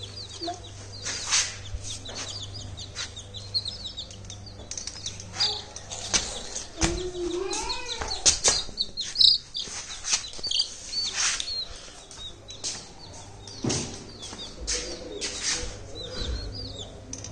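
Young chicks peeping in short, high, repeated cheeps, with bursts of wing flapping and sharp knocks against a wire-mesh crate as they scramble about.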